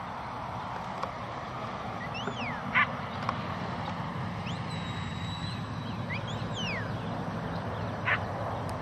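A handler's whistled herding commands to a working sheepdog. A few rising and falling whistles come about two seconds in, then a long held whistle around five seconds, then more quick up-and-down whistles soon after. Two short sharp sounds stand out, near three seconds and again near eight.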